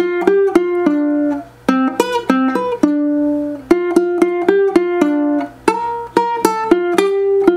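Ukulele picked note by note, a single-line melody in three short phrases with brief pauses between them. It is played by sight for the first time, so some notes are off.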